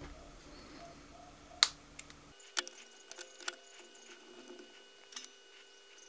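Faint scattered clicks and ticks of a bare copper wire being bent into place on a perfboard and the board being handled, with one sharper click about one and a half seconds in.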